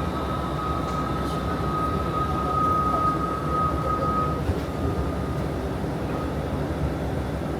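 Inside a moving city bus: steady low rumble of the engine and road, with a thin, steady high whine over it that fades a little over halfway through.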